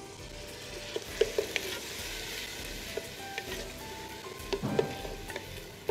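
Red and green peppers sizzling in a pot with a soy, chili and ketchup sauce just stirred in, with a few light clicks and knocks of a wooden spoon against the pot.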